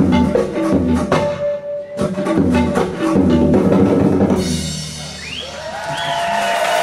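Live band with tabla and drum kit playing a fast rhythmic passage of repeated strikes, which stops about four and a half seconds in. The audience then cheers and whistles, with several rising and falling whistles.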